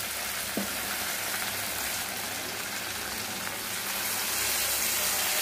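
Masala paste sizzling in hot oil in a kadai, with water poured into the pan and hissing as it hits the oil. The steady hiss grows a little louder about four seconds in.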